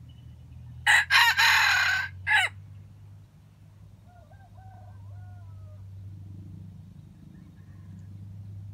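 Junglefowl rooster crowing: one loud, clipped crow of about a second and a half with a short final note after a brief break. About four seconds in, a second rooster answers with a much fainter crow. A steady low hum runs underneath.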